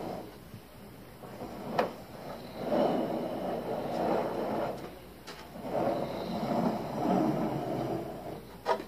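The 3D-printed plastic tub of a tracked RC vehicle being turned around on a workbench, scraping and rubbing against the bench surface in two stretches of about two seconds. Three sharp plastic knocks come about two seconds in, halfway through and at the very end.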